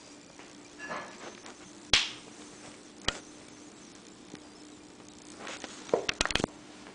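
A kitten moving about inside a cotton pillowcase on a hardwood floor: soft fabric rustling and sliding, with a sharp knock about two seconds in, another a second later, and a quick run of knocks near the end.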